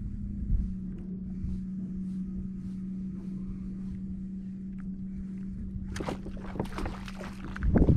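A steady low hum over open water on a kayak. About six seconds in comes a rough burst of splashing and rod-and-line commotion as a speckled trout strikes the lure right at the kayak and is missed.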